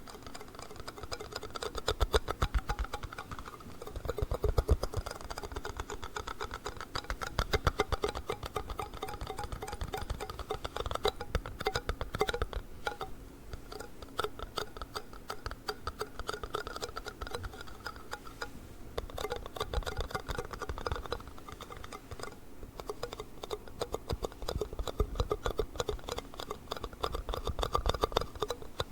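Rapid, dense tapping and clicking on plastic yogurt cups, a fast stream of light ticks with a hollow plastic ring, coming in busier and sparser stretches.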